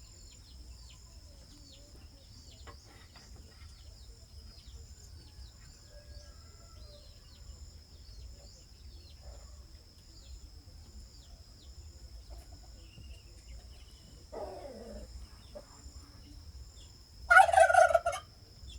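A turkey gobbling loudly near the end, a quick warbling call about a second long. Before it, a steady high insect trill runs on with scattered short, falling bird chirps, and a lower call comes a few seconds before the gobble.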